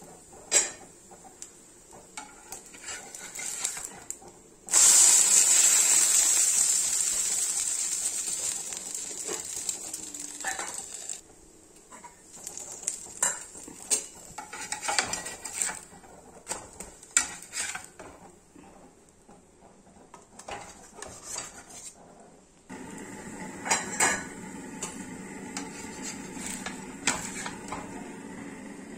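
Cooking on a tawa griddle: a steel lid and a steel spatula clink and scrape against the pan, and about five seconds in a loud sizzle starts suddenly and fades away over several seconds.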